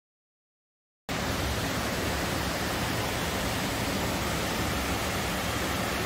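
Waterfall: a steady rush of falling water, cutting in abruptly about a second in after silence.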